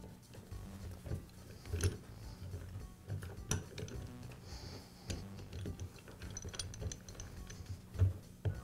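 Irregular clicks and light metal knocks as a Karcher pressure washer pump head is pressed down onto its housing against the piston springs. The loudest knock comes near the end.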